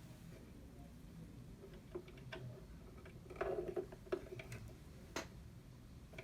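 Light scattered clicks and knocks of small sewing-machine parts being handled, with a brief rattle about three and a half seconds in and a sharp click a little after five seconds.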